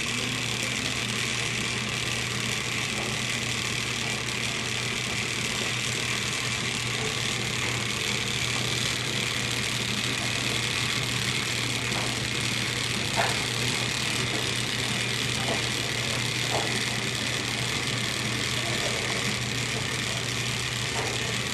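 Steady mechanical hum with an even hiss over it, unchanging throughout, and a few faint short sounds in the second half.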